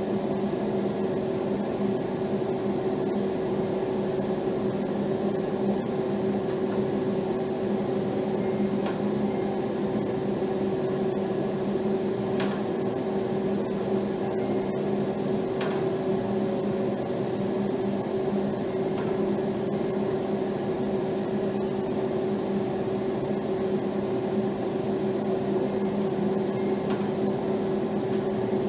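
Steady mechanical hum: two held tones, one low and one higher, over an even rushing noise, with a few faint clicks partway through.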